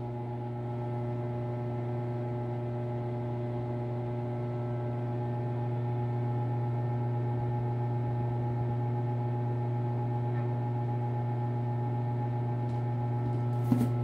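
Steady low electrical hum with a ladder of even overtones, growing slightly louder over the stretch.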